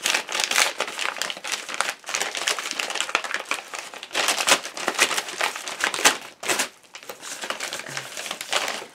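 A paper mailing envelope being crinkled and torn open by hand: continuous crackling rustle, with a few louder crackles about four and a half and six seconds in.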